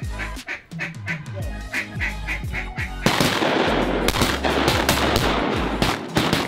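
Background music with a steady beat and deep sliding bass notes. About three seconds in, a loud, dense rush of noise with sharp cracks cuts in over it and lasts nearly to the end.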